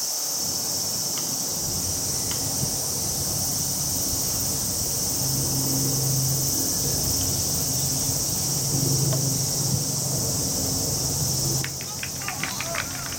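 Cicadas shrilling steadily in summer heat. A low steady hum comes and goes in the middle, and near the end a few short sharp clicks are heard.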